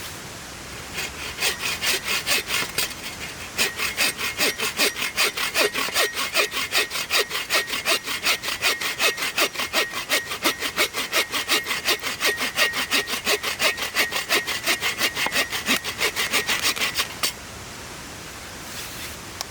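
Hand saw cutting through wood with quick, even back-and-forth strokes, about three or four a second, stopping a couple of seconds before the end. Under it is a steady rush of river water.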